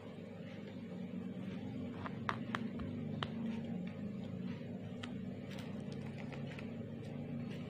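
Hands handling a treble fishing hook and plastic raffia string while tying: a few sharp little clicks, the loudest about two to three seconds in, and light rustling, over a steady low background hum.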